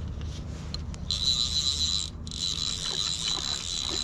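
Fly reel's click-and-pawl drag buzzing in spurts of about a second with short breaks, while a hooked trout is being played.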